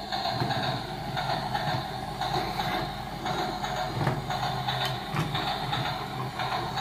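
Battery-powered toy train running across a tabletop, its motor whirring along with its built-in train sound effects.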